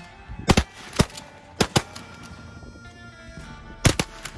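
Shotgun shots fired at flying clay targets: a quick run of sharp blasts in the first two seconds, then a close pair near the end. Background music plays underneath.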